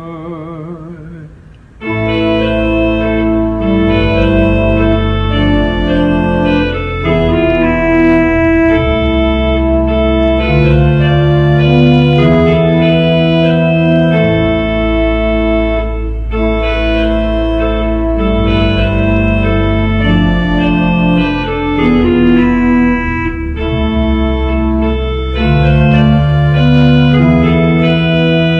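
A woman's voice holds the last sung word with vibrato and fades. About two seconds in, a church pipe organ comes in loud, playing sustained full chords over a deep bass that change every second or so.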